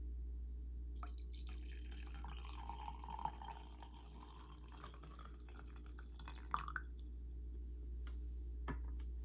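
A few faint drips of water, scattered single drops with a brief rising plink, over a steady low hum.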